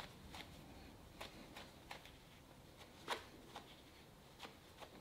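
Near silence: room tone with about eight faint, scattered clicks and taps, the clearest about three seconds in.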